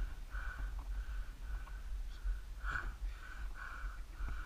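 Footsteps of people walking on a dirt road, about two steps a second, over a steady low rumble.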